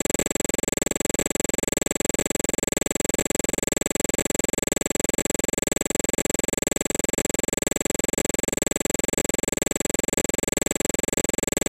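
Steady electrical buzz with a high whine in it, unchanging and with no separate events: noise on the recording line rather than any sound from the work on screen.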